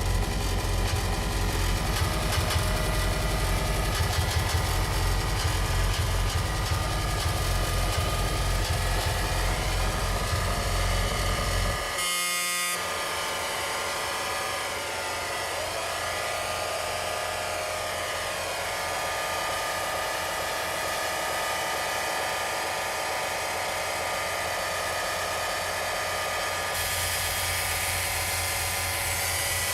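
Live electronic noise music: a dense wall of distorted noise with sustained droning tones over a heavy low rumble. About twelve seconds in it breaks off briefly, and the bass drops away while the noisy drone carries on.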